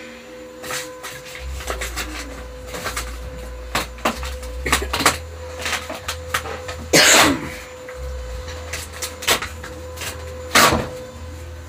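Scattered clicks, knocks and rustling of things being handled while a room is tidied, with two louder swishing rustles, one about midway and one near the end. A low rumble and a faint steady hum sit underneath.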